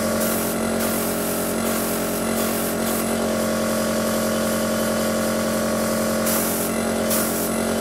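Airbrush compressor running with a steady hum, with several short hisses of air as a Badger 200 single-action airbrush sprays.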